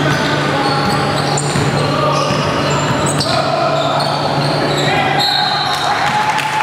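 Basketball game sounds on a hardwood gym floor: the ball bouncing, sneakers squeaking in short high chirps, and players' voices, over a steady low hum in the big hall.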